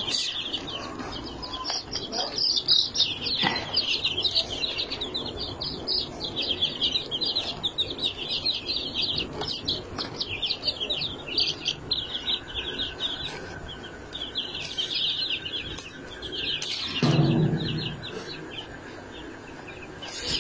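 Many baby chicks peeping constantly in a crate, a dense chorus of rapid high cheeps. A brief louder, lower sound cuts in about three seconds before the end.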